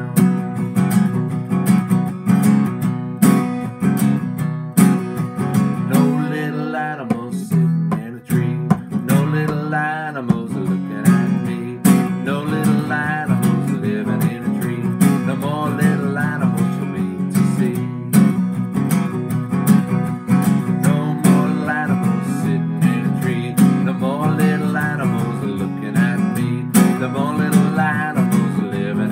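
Acoustic guitar strummed in a steady rhythm while a man sings a simple verse-by-verse children's song over it.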